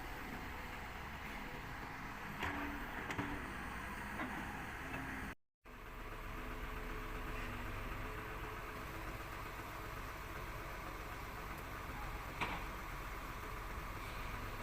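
Excavator's diesel engine running steadily, with a few sharp knocks, and the sound drops out for a moment about five seconds in.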